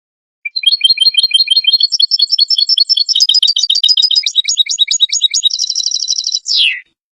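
European goldfinch singing one long phrase of rapid twittering notes. It ends in a buzzy trill and a falling nasal note.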